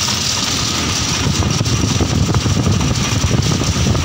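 Cabin noise inside a moving passenger bus: a steady engine and road rumble with hiss. It turns a little louder with scattered knocks and rattles from about a second and a half in.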